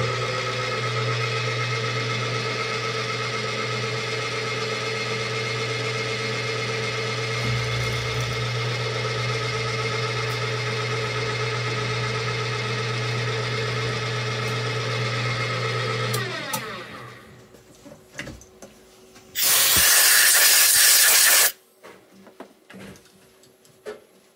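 Milling machine spindle running with a steady hum and whine while a small end mill cuts into an aluminium heat sink block; the spindle winds down and stops about sixteen seconds in. A few seconds later comes a loud hiss lasting about two seconds, then a few light clicks.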